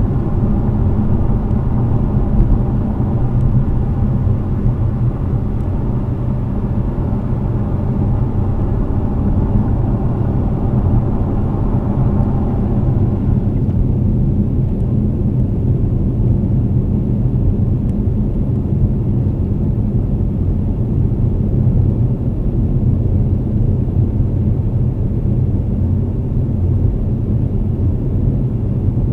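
Car driving on a wet highway, heard from inside the cabin: a steady low rumble of tyres and engine. A humming tone sits over it and fades out about halfway through.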